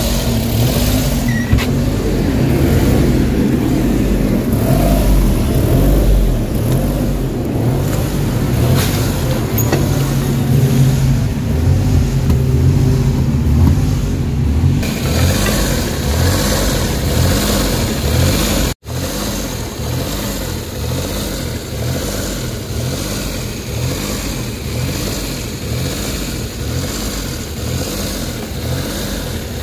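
Suzuki DA17's small three-cylinder engine running warm at idle, its RPM hunting up and down: a surging rough idle with no fault code stored. The sound cuts out for a moment about two-thirds through, and the engine sounds lighter after it.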